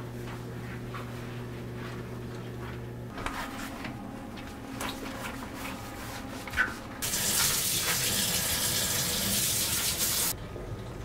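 Kitchen faucet running into a stainless sink for about three seconds near the end, then shut off suddenly. Before it, faint rubbing and clicks of gloved hands wiping the counter, over a low steady hum that stops about three seconds in.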